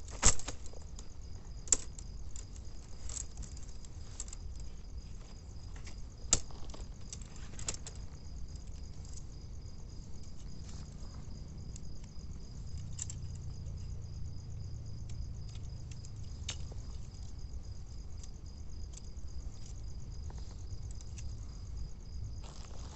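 Crickets chirring steadily in one unbroken high trill that cuts off near the end, with scattered sharp clicks and knocks of tent poles and gear being handled while a tent is put up. The loudest clicks come about a second in and about six seconds in, over a low rumble.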